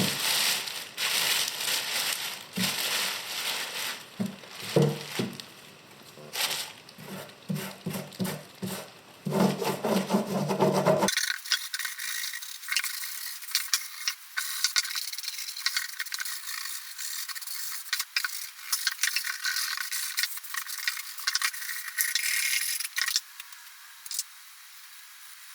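A scraper working over the painted sheet-metal of an old tackle box, scraping and rattling as softened layers of old paint come off. About eleven seconds in the sound turns thin and tinny, a dense patter of small clicks and scrapes.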